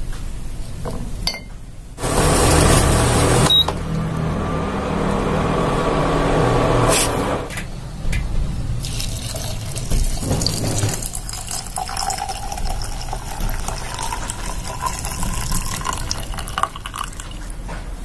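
Water poured into a small glass jug of ginger slices, coriander seeds and a cinnamon stick. First comes a loud splashing pour for a few seconds, then a steadier stream whose ringing pitch rises a little as the jug fills. A few light clinks come before the pour.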